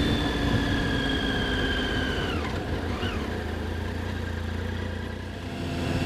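Triumph Street Triple 675's three-cylinder engine running while the bike slows off the throttle. Its whine falls in pitch and drops sharply a couple of seconds in, rises and falls briefly about three seconds in, and grows louder again near the end as the bike pulls away.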